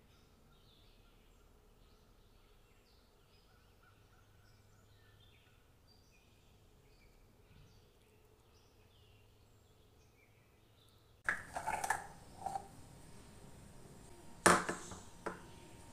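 Faint birds chirping in the background. About eleven seconds in, louder handling noises start, with a sharp knock near the end: kitchen utensils being handled on a countertop.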